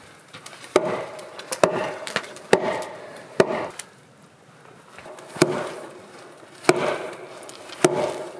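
Sledgehammer striking a log beam seven times to knock it over into position: four blows about a second apart, a pause, then three more, each a solid wooden knock that rings briefly.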